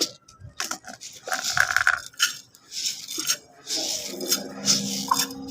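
Grain rattling and pattering into a bird feeding plate, with clicks and scrapes of the plate as it is filled. A steady low tone sets in about four seconds in.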